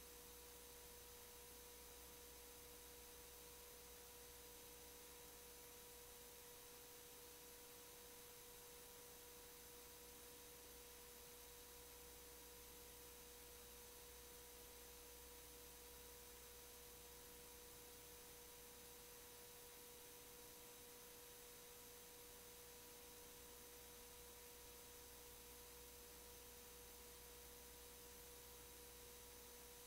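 Near silence: a faint, steady, high single-pitched electronic tone over hiss.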